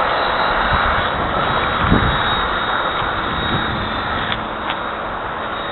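ParkZone SE5a Scout electric RC model airplane in flight, its electric motor and propeller giving a steady buzz with a faint high whine, and a brief thump about two seconds in.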